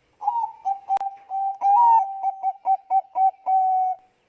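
Zebra dove (Thai-bred 'Bangkok' perkutut) cooing: a run of short, clipped coos ending in one longer held note. A single sharp click comes about a second in.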